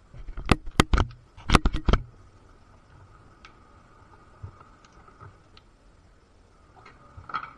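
A quick run of about eight sharp clicks and knocks in the first two seconds, then a few faint ticks and one more click near the end: a screwdriver working the fastening screw of a Powerlock single-pole connector held in the hand.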